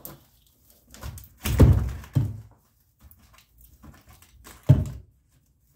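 Dull thumps and knocks of wooden sticks handled on a plywood workbench: a heavier thump about a second and a half in and a sharp knock near the end.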